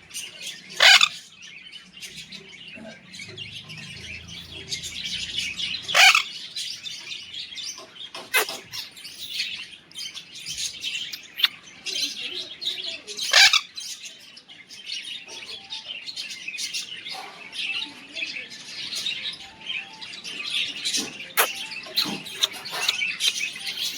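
Pet parrot calling: several loud, sharp screeching calls about a second in, at about six, eight and thirteen seconds, and a few more near the end, over continuous high chirping.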